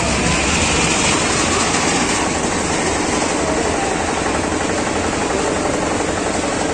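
Steady, loud fairground din: a machine-like rumble from engines running the rides, mixed with the noise of a large crowd, with no single voice standing out.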